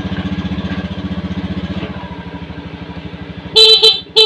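Honda Scoopy's single-cylinder scooter engine idling with an even rapid pulse. Near the end its electric horn gives two short honks that stay loud, which the owner takes to mean the battery is not behind the weak starter.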